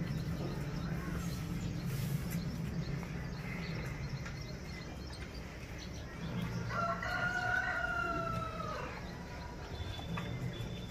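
A single long animal call with a slight fall in pitch at the end, held about two and a half seconds, starting about six and a half seconds in.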